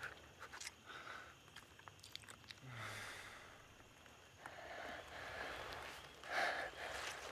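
Wet sucking and slurping mouth sounds with small clicks as a man sucks the marrow out of a horn, then breathy noise that swells a little after six seconds in.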